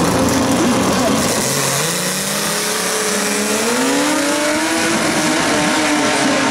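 Two drag-racing cars launching off the start line and accelerating down the strip. The engine note climbs steadily for a couple of seconds, then holds high as they run away.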